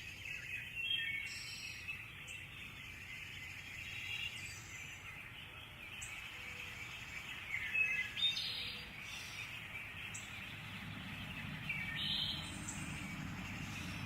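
Wild birds calling and chirping in a forest: scattered short high calls over a faint steady background.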